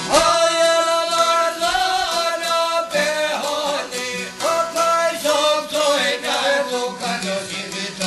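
A man singing an Albanian folk song in long held notes over quickly plucked çifteli, the two-stringed long-necked lutes. The voice comes in right at the start, over the instruments.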